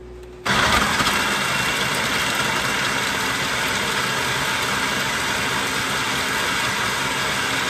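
Electric food processor running, chopping basil leaves, walnuts and garlic into pesto. The motor starts abruptly about half a second in and runs at a steady pitch.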